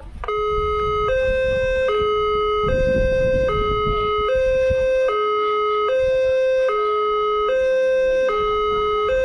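Railway level-crossing warning alarm sounding as the crossing closes for an approaching train: an electronic two-tone chime switching on abruptly, then alternating steadily between a lower and a higher note, each held just under a second.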